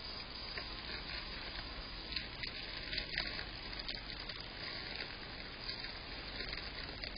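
Steady hiss from a motion-detector security camera's microphone, with faint scattered clicks and rustles from a hedgehog stirring in the paper and hay bedding of its hedgehog house.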